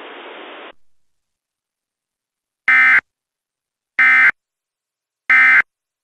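Emergency Alert System end-of-message data tones: three identical short bursts of harsh digital screeching, evenly spaced about 1.3 s apart, marking the end of the alert. A faint hiss fades out in the first second.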